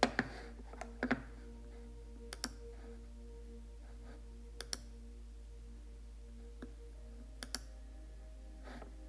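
Fingertips tapping a tablet's touchscreen: a handful of sharp, short clicks, several in quick pairs, spaced a second or two apart, over a faint steady hum.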